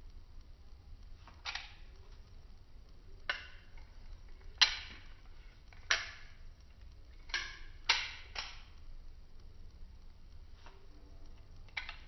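Stainless-steel butterfly knife (balisong) being flipped in the hand, its handles clacking open and shut. About eight sharp clacks come at uneven intervals, three of them in quick succession about two-thirds through.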